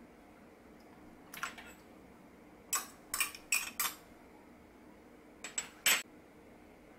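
Metal spoon clinking against a small ceramic bowl and a stainless steel pot while scraping soybean paste and salted shrimp out into the water: a couple of light clinks, a quick run of four in the middle, and three more near the end, the last the loudest.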